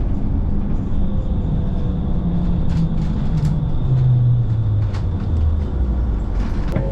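Bus running with a low drone that falls steadily in pitch over a few seconds as it slows, with a few light knocks.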